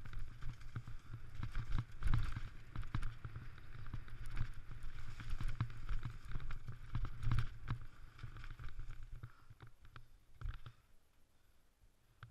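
Mountain bike ridden fast down a rough dirt trail: rapid irregular knocks and rattles from the bike over bumps, over a low rumble. It quietens about ten seconds in as the bike slows to a stop.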